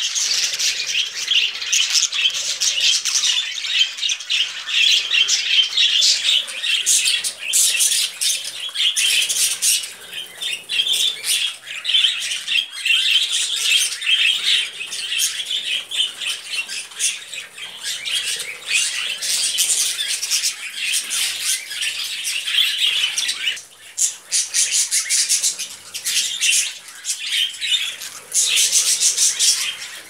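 A flock of pet budgerigars chattering: a continuous, busy mix of high chirps, warbles and squawks, with wings flapping now and then.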